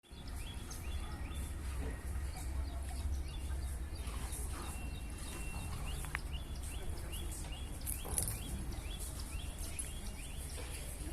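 A bird calling over and over in short rising notes, about two or three a second, with one longer held note about five seconds in, over a steady low rumble.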